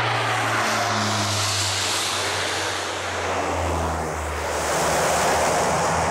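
Propeller aircraft engines running loudly at an airstrip, a dense noise over a low drone that drops in pitch a little past halfway through.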